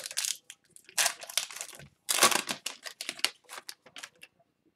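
Foil wrapper of an Upper Deck Artifacts hockey card pack being torn open and crinkled in a run of crackly bursts. The loudest come about one and two seconds in, and smaller crinkles die away after about four seconds.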